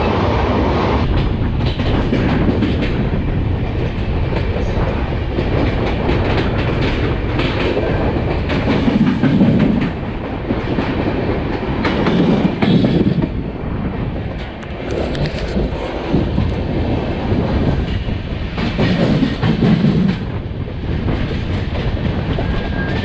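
Passenger train running along the line, a continuous rumble with the wheels clattering over the rail joints. Low surges swell up a few times.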